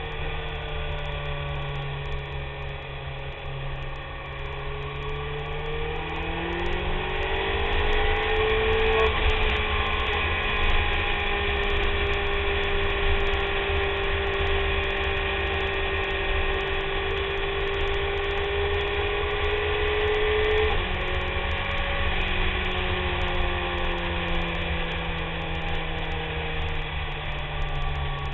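BMW K1300S's inline-four engine under way, its pitch rising as it speeds up, holding steady, then dropping suddenly about twenty seconds in and sinking slowly as it slows. A constant low wind rumble on the microphone lies underneath.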